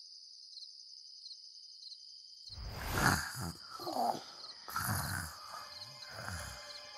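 Crickets chirping in a steady night chorus, then from about two and a half seconds in, sleeping cartoon characters snoring: four loud, rough snores about a second apart over the chirping.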